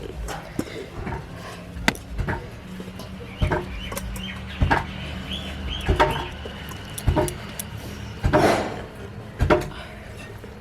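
Wooden rolling pin knocking and rolling on a board as bread slices are pressed flat, about ten separate knocks at uneven intervals. A bird calls in the background, with a thin high chirping in the middle and a louder call near the end.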